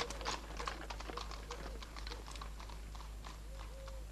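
Horse hoofbeats on hard ground, fading away. The strikes are irregular and grow fainter and sparser toward the end.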